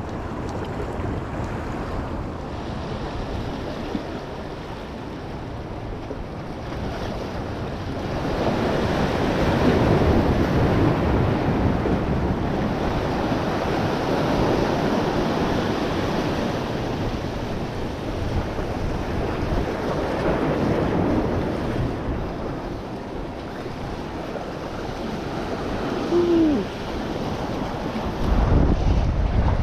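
Ocean waves breaking and washing over the jetty's boulders, rising and falling in slow surges, with wind buffeting the microphone. A strong low wind rumble comes near the end.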